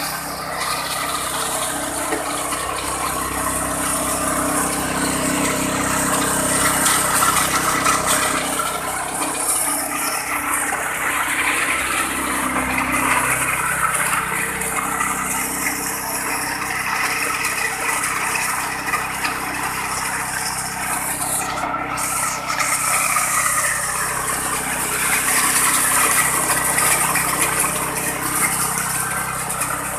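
Wet coffee pulper machine running steadily, a continuous mechanical drone with steady engine-like tones under a dense noise.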